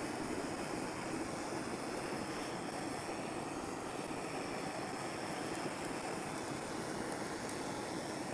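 Handheld gas torch flame burning steadily as it chars the surface of a cedar board, an even rushing hiss with a few faint ticks.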